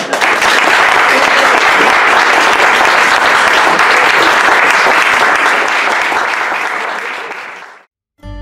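Audience applauding steadily at the end of a spoken story, fading away near the end; music begins right at the very end.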